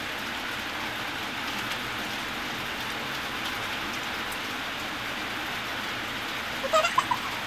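Steady, even hiss like rain, with a few short, high-pitched calls near the end.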